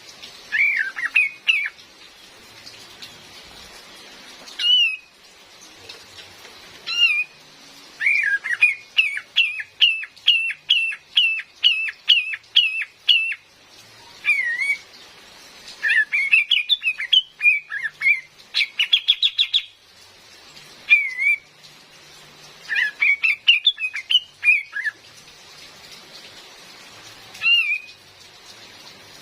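Female kapas tembak calling: short, sliding whistled notes, single calls at first, then a quick run of about a dozen notes, then tangled chattering phrases. Steady rain hisses underneath.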